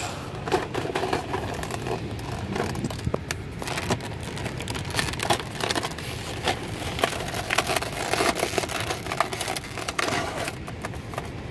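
Stiff clear plastic clamshell blister pack being pried open and handled, crackling and crinkling with many irregular sharp clicks.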